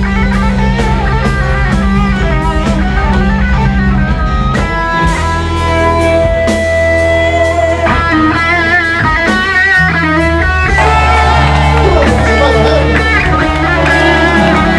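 Live funk-rock band: a lead electric guitar solo over held bass notes and a drum kit, with wavering held guitar notes about halfway through.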